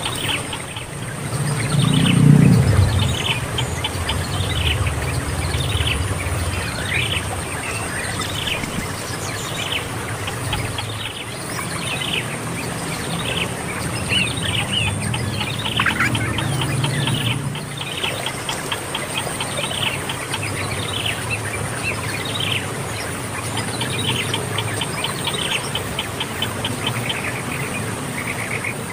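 Birds calling over and over with short falling chirps and quick trills, over a steady high-pitched drone, with a low rumble that is loudest about two seconds in.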